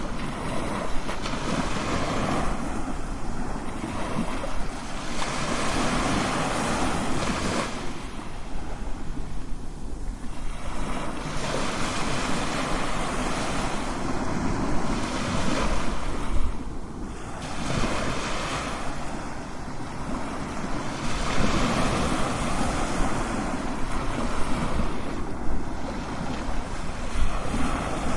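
Crashing ocean waves: a continuous wash of surf that swells and eases every several seconds as waves break.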